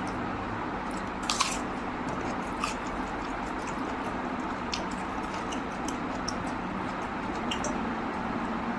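A person eating spicy mutton curry and rice: soft chewing and a few short clicks and smacks, the sharpest about a second and a half in, over a steady background hiss and low hum.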